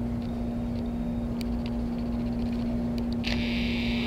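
A steady mechanical hum over a low rumble, with a few faint clicks. About three seconds in, a hiss comes in and lasts to the end.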